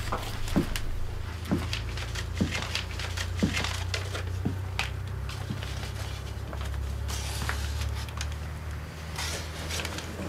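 Slow footsteps on an old wooden floor, about one a second, with cloth rustling. Then longer rustling of cloth and paper being handled, over a steady low hum.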